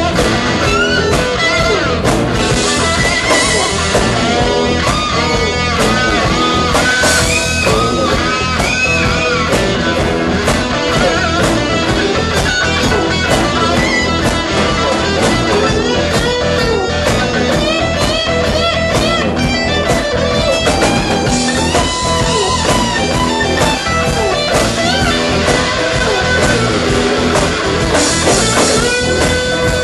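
Live blues-rock band playing an instrumental passage: electric guitar lead with bent notes over bass guitar and a drum kit, loud and steady throughout.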